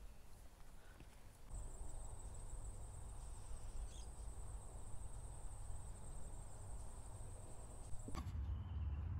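Insect calling: one steady, thin, high-pitched trill over a faint low rumble, starting about a second and a half in and cutting off near the end.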